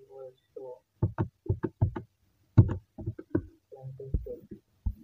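A man's voice speaking in short, choppy bursts, the words not made out, as if working a calculation aloud under his breath.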